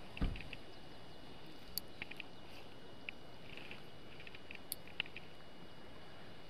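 Quiet outdoor ambience by the water: a steady hiss with a dull thump just after the start, then scattered faint high chirps and a couple of sharp ticks.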